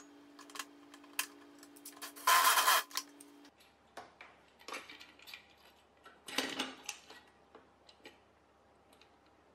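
Clicks and clatter of small metal parts and LED light bars being handled against an ATV's steel rack, with two louder clattering noises of about half a second each, near two and six seconds in. A faint steady hum stops about three and a half seconds in.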